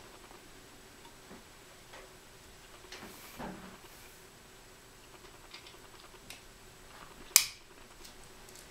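Small scattered clicks and taps of a folding knife's screws, G10 handle scales and steel liners being handled with a small driver during disassembly, with one loud sharp click about seven seconds in.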